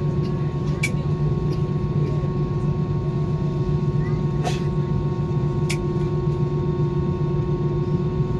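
Steady jet engine and airflow drone heard inside an airliner cabin, a deep even hum with a few steady tones over it and a few short clicks.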